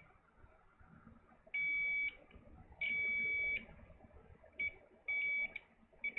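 Multimeter continuity beeper sounding several beeps of uneven length, one steady high tone, as the probes touch a line on a laptop logic board. The beep signals low resistance on the line, which the technician takes for a possible short.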